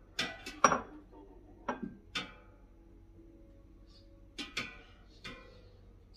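Metal kitchen tongs clinking and scraping against the metal basket of an air fryer while food is turned: about eight sharp clinks in small groups, a few ringing briefly.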